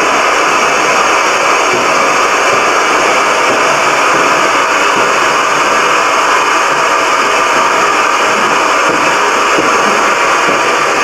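Autometrix 2D ply-cutting plotter running as it cuts carbon-fibre ply shapes: a loud, steady whirring rush with no separate strokes or rhythm.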